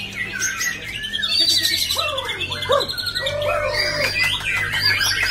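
White-rumped shama singing among other caged songbirds: a busy mix of clear whistles, falling slurred notes and a fast high trill, with a steady low hum underneath.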